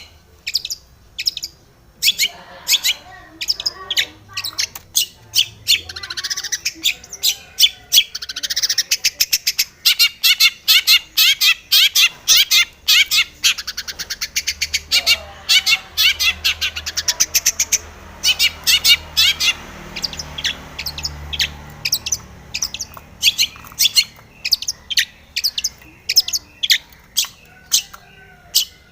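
Long-tailed shrike (cendet) singing: a long string of short, sharp, repeated notes that speed into rapid rattling runs in the middle before slowing again.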